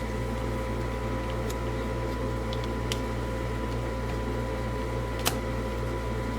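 Steady background hum of a small room with a few sharp clicks from hands working on the trimmer and its taped cable; the loudest click comes about five seconds in.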